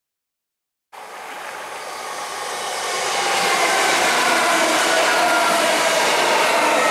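c2c electric multiple unit train running past on the line: wheel-on-rail noise with a whine that falls slightly in pitch. The sound starts abruptly about a second in and grows louder over the next few seconds.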